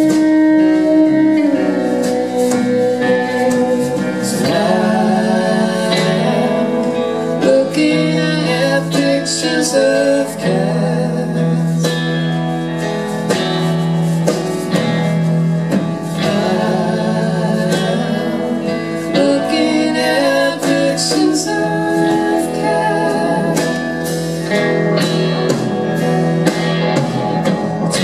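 Live pop-rock band playing a song: electric guitars, piano and drum kit with cymbals, with sung vocals at times.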